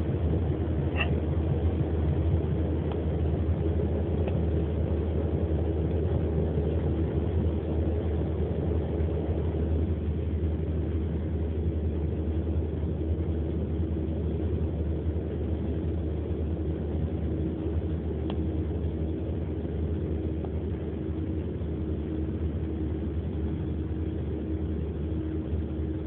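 Steady low engine and road rumble heard inside a car's cabin, with a few brief faint sharp sounds, about a second in and again later.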